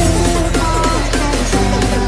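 Background electronic dance music with a steady beat and gliding synth lines.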